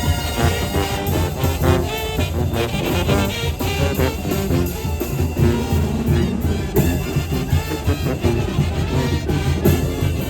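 Two Sinaloan brass bands (banda sinaloense) playing live together: trumpets and trombones over a tuba bass line and drums, with a steady beat.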